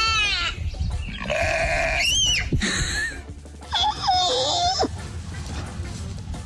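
Goat bleating several times in the first five seconds, the calls wavering and bending in pitch.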